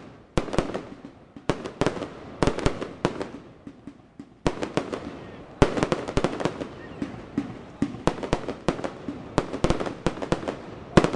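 Aerial fireworks display: many sharp bangs in quick, irregular succession as shells go up and burst, with a short lull about four seconds in before the bangs pick up again.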